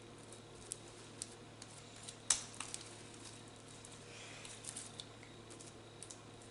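Homemade sticky slime being handled: faint squishes and small sticky clicks and pops, with one sharper click about two seconds in.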